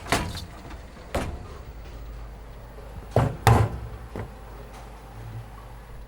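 A few sharp knocks or bangs, the loudest two close together about three and a half seconds in, over a steady low hum.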